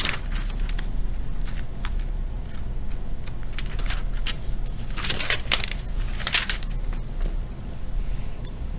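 Paper being handled: short rustles and scratchy clicks, busiest about five to six seconds in, over a steady low electrical hum.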